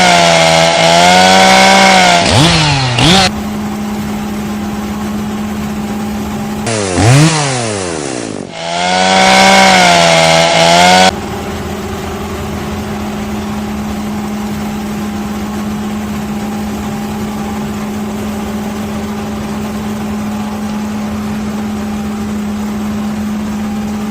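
Two-stroke chainsaw engine running at high revs, its pitch wavering under load, in two loud stretches that each cut off suddenly. Between and after them a steadier engine idles at a fixed pitch.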